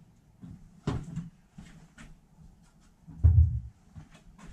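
Scattered clicks and metallic knocks of engine parts and tools being handled in an engine bay, with a sharp knock about a second in and a heavier dull thud about three seconds in.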